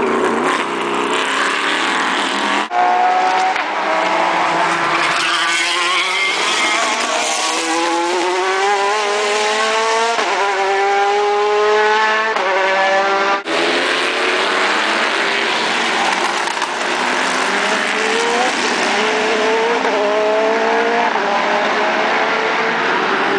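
Race cars at full throttle, engines revving up through the gears, the pitch climbing, dropping at each upshift and climbing again as the cars accelerate past. The sound breaks off sharply twice, about three seconds in and a little past the middle.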